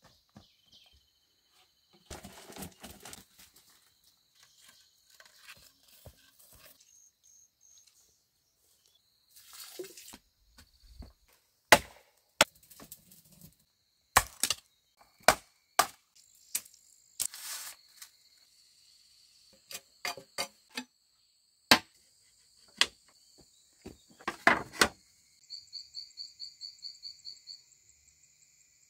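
Scattered sharp knocks and clacks with some rustling, over a steady high insect drone. Near the end a rapid, evenly pulsing insect trill, about five pulses a second, runs for a couple of seconds.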